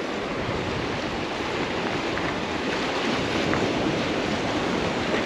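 Ocean surf breaking and washing against the rocks of a jetty: a steady rushing noise.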